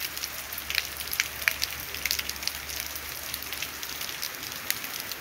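Light rain falling steadily on a wet paved street, with scattered sharp taps of drops striking close by.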